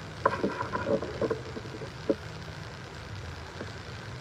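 A man's voice speaking a few short words in the first half, then a pause, over a steady low hum.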